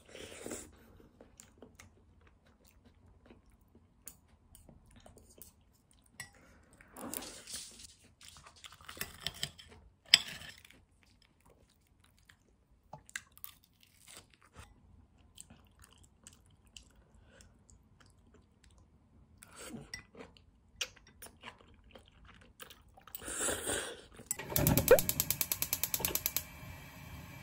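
Eating sounds: chewing, with scattered sharp clinks of chopsticks and a spoon against a ceramic bowl. Near the end comes the loudest sound, a gas stove's igniter clicking rapidly for about two seconds as the burner knob is turned.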